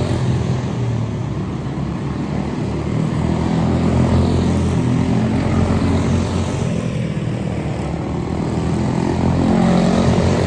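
Quarter midget race cars' small single-cylinder Briggs & Stratton Animal engines running at race speed during a feature, the engine note rising and falling as the cars circle the track, swelling about four seconds in and again near the end.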